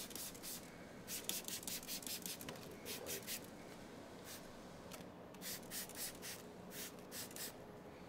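Paint protection film being worked onto a car's front bumper by hand: a series of short, hissy rubbing strokes in quick clusters.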